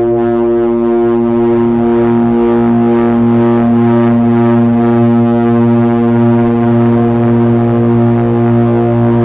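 Heavy electronic drone noise: several steady low tones from a Hewlett-Packard 200C audio oscillator run through Frequency Analyzer effects, layered into a loud buzzing chord. A harsh hiss thickens over it from about two seconds in.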